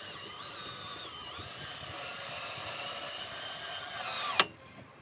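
Cordless drill running steadily for about four seconds, driving a bolt down through a truck rack's mounting foot into its bed-rail clamp; its whine dips slightly as the load changes. It stops near the end with one sharp knock.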